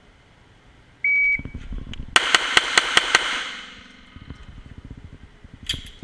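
A short steady electronic beep, then a fast string of about seven 9mm shots from a Glock 34 pistol, ringing in an indoor range bay. A few fainter knocks follow near the end.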